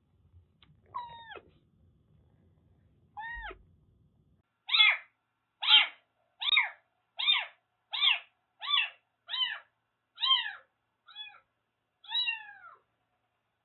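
Siamese-mix kitten meowing over and over, about a dozen short meows that each rise and fall in pitch: two spaced-out calls, then a steady string of about one a second from about five seconds in. It is night crying, usual for a newly rescued kitten in its first days.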